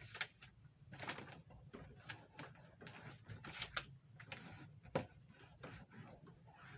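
Hand-work handling noises: irregular small clicks, taps and rustles, with one sharper click about five seconds in, over a steady low hum.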